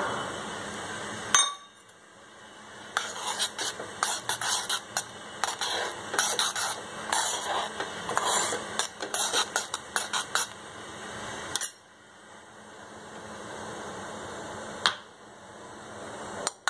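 A spoon stirring and scraping around a saucepan of milk simmering on a gas stove, many quick scrapes and clinks from about 3 to 11 seconds in. Before and after that comes a steady hiss from the pan on the flame.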